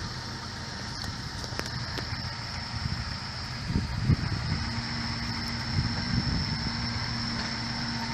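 Off-road 4x4's engine running steadily at low revs while crawling over an obstacle, with a few sharp knocks in the first couple of seconds.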